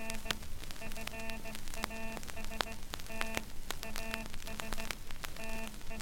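Morse code practice sent as a low buzzing tone keyed in dots and dashes, played from a battered 78 rpm shellac record, with constant surface crackle and sharp pops from the worn disc.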